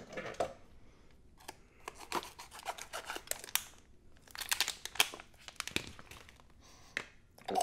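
Scissors snipping open a sealed plastic packet, with the plastic crinkling as it is handled: a run of short, sharp snips and clicks.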